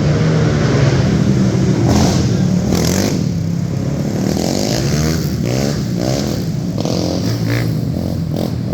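Youth racing quad engines running hard on a short track, several overlapping engines rising and falling in pitch as the riders rev them up and back off.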